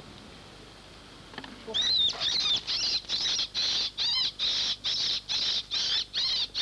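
A run of short, high-pitched squeals, about two a second, starting a couple of seconds in. This is a lamper squeaking a fox in, imitating a rabbit in distress to bring it back into the lamp.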